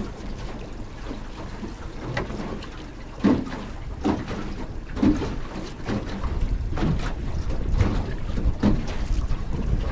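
Small outboard boat moving at trolling speed: water slapping against the hull about once a second over a low rumble of motor and wind noise, the rumble growing louder in the second half.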